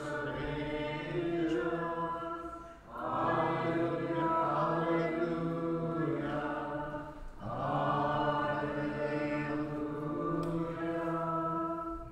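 Liturgical chant of the Byzantine-rite Divine Liturgy, sung in long held phrases with brief pauses about three and seven seconds in.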